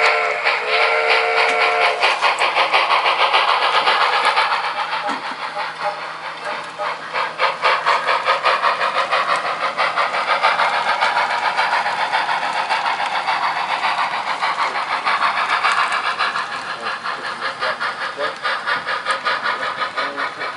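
Sound-equipped model steam locomotive: its whistle blows briefly at the start, then it chuffs steadily as it pulls the block of cars over a track.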